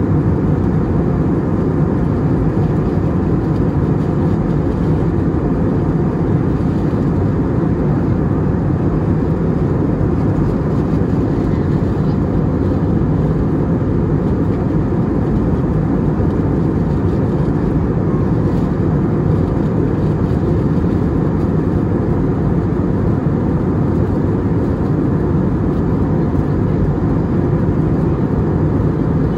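Steady cabin noise inside an Airbus A320neo: even engine and air noise with a low hum, unchanging throughout.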